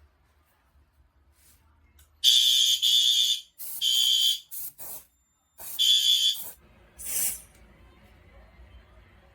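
Fire alarm horn sounding in a series of short blasts of uneven length for about five seconds, starting about two seconds in. The brief soundings are typical of a walk test.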